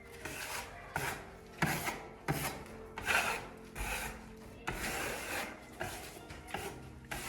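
Steel trowel scraping and smoothing half-dry decorative plaster, in repeated short strokes about one a second.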